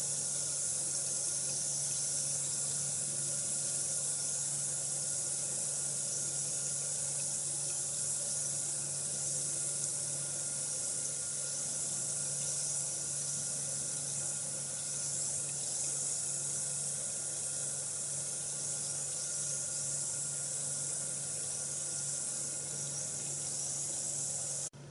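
Bath bomb fizzing in water: a steady high hiss of bubbles that cuts off suddenly near the end.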